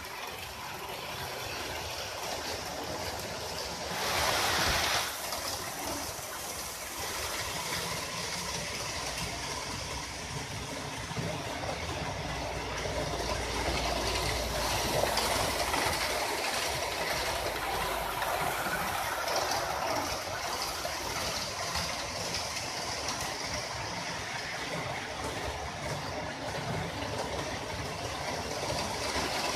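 Model electric trains running on a layout, heard as a steady rushing of wheels on the track with motor hum. It gets louder and brighter for about a second, four seconds in, and a low rumble comes in around the middle as a train passes close.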